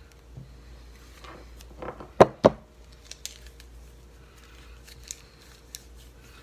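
Two sharp knocks about two seconds in as the steel blade and the etching tool are set down on a plastic cutting mat, followed by a few light clicks and rustles of handling.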